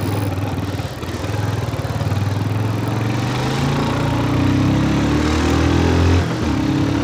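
Motorcycle engine accelerating under the rider, its pitch climbing over a few seconds, then dropping briefly near the end at a gear change before rising again.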